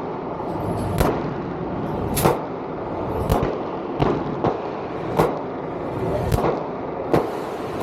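Gunshots on a shooting range: single sharp shots at irregular gaps of about half a second to a second, some louder and some fainter, each with a short ringing tail.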